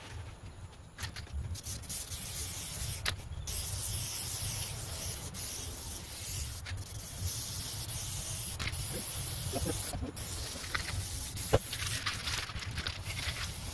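Aerosol can of Loctite spray adhesive hissing in long bursts with short breaks as it is sprayed onto a headliner backboard. A sharp click near the end, under a low steady rumble.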